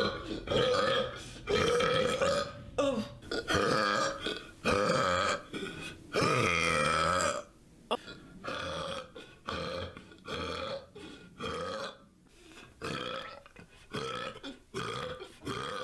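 A person burping over and over, more than a dozen separate belches, many with a clear tone to them. The longest and loudest, about a second and a half, comes a little before the middle; the later ones are softer and shorter.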